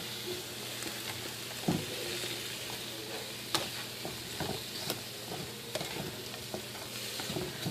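Broccoli, cabbage and apple slaw sizzling steadily in a hot pot as it sweats down, with a few scattered knocks of a utensil against the pot.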